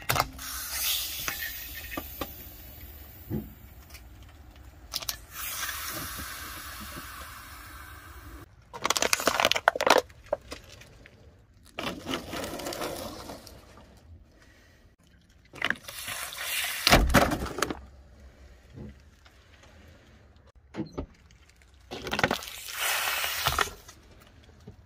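Car tyre rolling over and crushing toiletry containers on asphalt: a long hiss of spray escaping from a crushed aerosol can, then plastic bottles crunching, cracking and popping under the wheel in several separate bursts, the loudest a sharp pop with a low thud.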